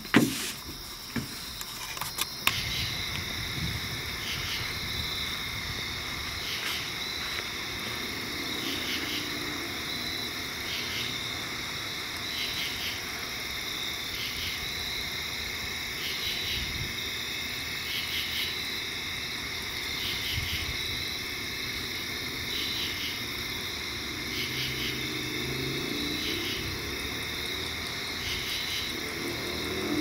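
Insects trilling steadily, with a faint pulsing note that repeats about once a second. A low engine hum builds toward the end.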